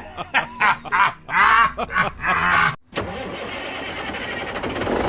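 A string of short, pitched voice-like sounds. Then, after a brief gap and a click about three seconds in, a tractor engine starts and runs steadily.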